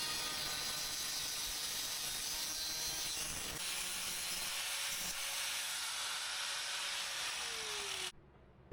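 Power saw cutting through a small steel pipe piece, splitting it lengthwise, with a steady hiss. Near the end the motor's pitch drops, then the sound cuts off abruptly.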